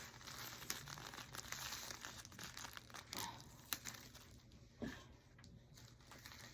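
Packaging crinkling and rustling as items are handled and packed, with a few sharp clicks.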